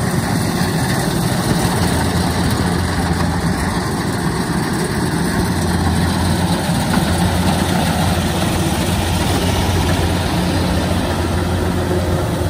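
Kubota DC-93 rice combine harvester's diesel engine running steadily under load as it cuts and threshes rice, a constant low drone with the clatter of the harvesting machinery over it.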